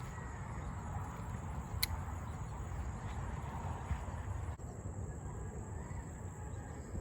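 Outdoor ambience: wind rumbling on the microphone under a steady high-pitched insect trill, with two short sharp clicks, about two and four seconds in.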